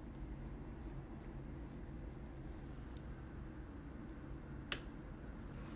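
Coloured pencil scratching faintly on kraft card in short downward strokes, then a single sharp click near the end.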